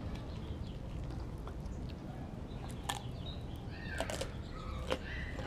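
A Doberman chewing raw chicken, with a handful of sharp clicks of teeth and jaw, the loudest about four and five seconds in, over a steady low rumble.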